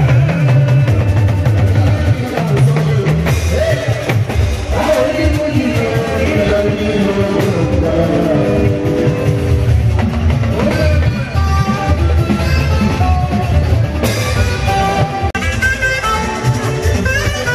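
Live Fuji band music: a male lead singer sings into a microphone over bass guitar, keyboard and drums, played loud through the hall's speakers.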